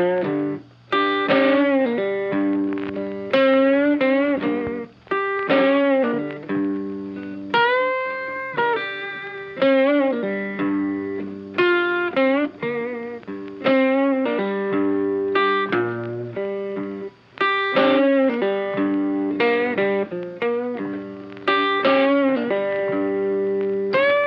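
Background instrumental music: a melody of sharply picked notes, some bent upward, over sustained lower notes.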